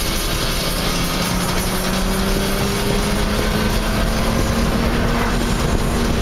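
BMW E30's engine pulling under acceleration, heard from inside the cabin. Its pitch rises slowly and steadily as the revs climb from about 3,000 to 4,500 rpm, over a steady rush of road and wind noise.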